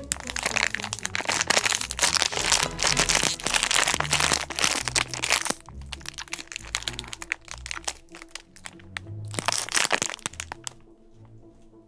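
Crackling and crunching as a frozen ice-cream bar is eaten from its plastic wrapper, in a long spell at the start and a shorter one near the end. Background music runs underneath.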